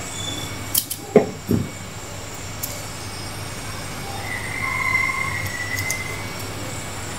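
Small spring-loaded snips cutting double-sided tape, a few sharp snips about a second in. A thin high squeal follows for about a second and a half near the middle.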